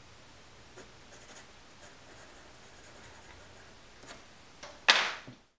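Pencil on paper: light, scattered strokes and taps of the lead as the drawing is finished and signed. Near the end there is one louder, sharp scrape, and then the sound cuts off suddenly.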